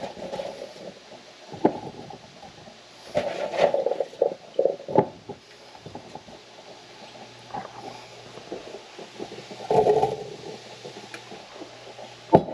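Chopped rhubarb pieces handled and dropped into a glass measuring cup from a plastic bowl: irregular rustling and knocking that comes and goes. A short sharper knock near the end.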